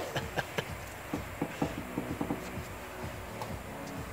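Faint, irregular light clicks of a Ford 8.8 rear differential's 4.10 ring gear being rocked back and forth by hand against the pinion to check gear backlash, over a low steady hum.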